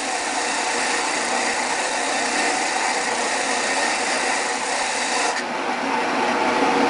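Disc sander running with a wooden bowl half pressed against the abrasive disc to flatten its face: a steady sanding hiss over the motor's hum. The hiss eases off about five seconds in while the sander keeps running.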